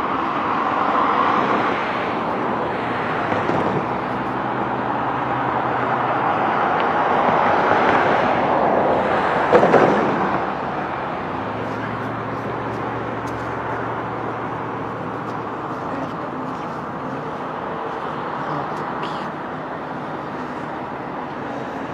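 Freight train rolling past on the line: steady rumble of diesel locomotives and freight cars, loudest about ten seconds in and then easing to a steady run.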